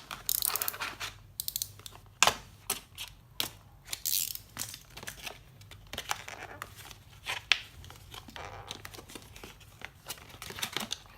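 Hard plastic shell packaging being pried and torn open by hand: irregular crackling and crinkling with sharp snaps of the stiff plastic, the loudest snap about two seconds in.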